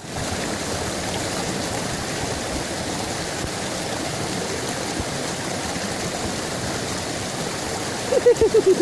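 River water flowing steadily. Near the end comes a short run of about six quick, falling voice sounds.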